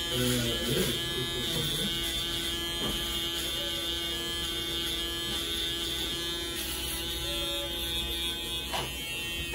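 Cordless electric beard trimmer running with a steady buzz as it trims a man's beard, cutting off suddenly at the very end.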